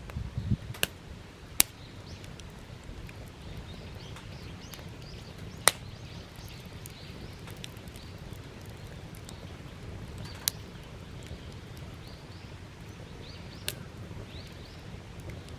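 Wood fire burning, with sharp crackling pops from the firewood every few seconds over a steady low background. The loudest pop comes about six seconds in.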